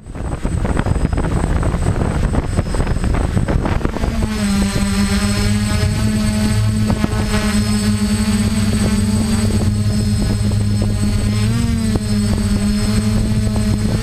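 DJI F450 quadcopter's four electric motors and propellers, loud and close from the camera on the frame: a rough rushing noise for the first few seconds, then a steady multi-toned buzzing hum whose pitch wavers briefly near the end.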